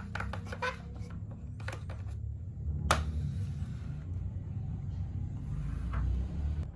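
Plastic toy wheelbarrow being handled and set down on a tabletop: light rubbing and knocks, with one sharp click about three seconds in, over a low steady rumble.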